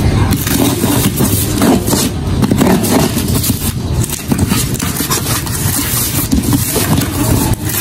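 A knife slitting the packing tape on a cardboard box, with irregular scrapes and knocks as the box is handled and turned over. A steady low rumble runs underneath.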